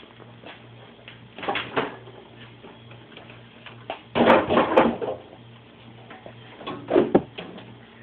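Thumps and clatter of a microwave oven being moved and set down on a chair, in three bouts: about one and a half seconds in, a longer, louder bout about four seconds in, and another about seven seconds in. A low hum pulsing about three times a second runs underneath.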